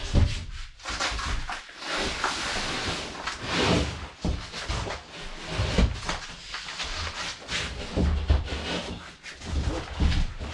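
A large drywall sheet being handled and stood up: the board scrapes and rubs as it is shifted, with several dull thumps as it knocks against the floor and wall.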